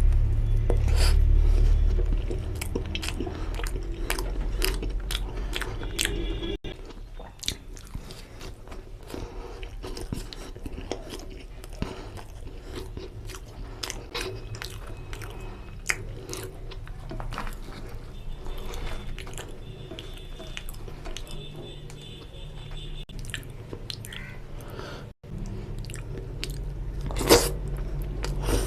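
Close-miked chewing and biting of mutton lung and intestine curry with puri: wet, smacking mouth sounds with many short clicks, one sharper snap near the end. A low rumble sits under the first couple of seconds.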